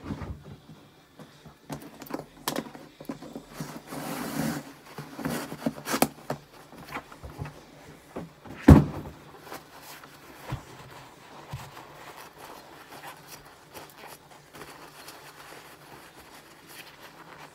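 Pistol parts being handled on a padded bench mat, with scattered small metal clicks and taps and stretches of shop-towel rustling. One heavy thump comes just under nine seconds in, followed by quieter rubbing of the towel wiping a part.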